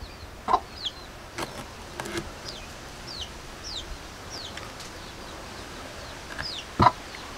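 Chickens clucking a few times, with short, high, falling chirps from birds repeating at uneven intervals.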